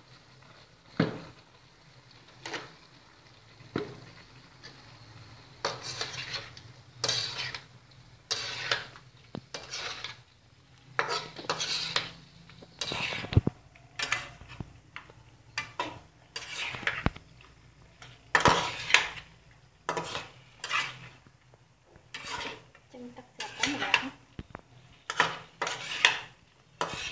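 Metal spatula and spoon scraping and clattering against a metal wok as pineapple chunks and beef are stir-fried, in irregular strokes that come more often in the second half, over a faint steady low hum.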